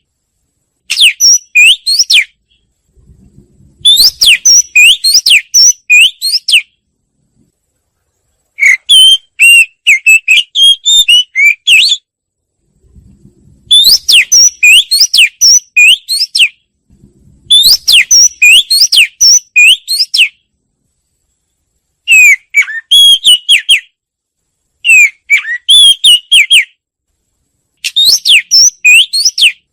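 Wagtail song: bouts of rapid, high, sweeping whistled notes, each lasting two to three seconds, repeated again and again with short silent gaps between them.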